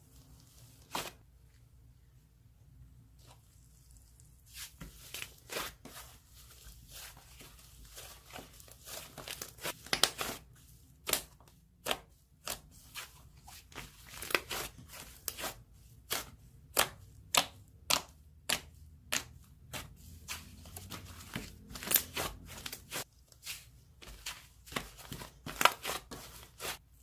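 Thick slime being pressed, stretched and folded by hand, giving a string of sharp pops and crackles. They are sparse at first and then come about every half second.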